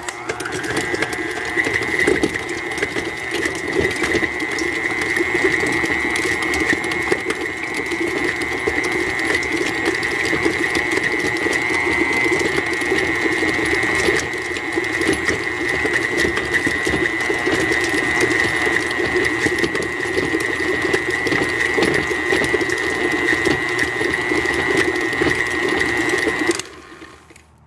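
KitchenAid stand mixer running steadily with a steady high whine, beating chicken breasts in the bowl to shred them; it is switched off and stops suddenly about a second before the end.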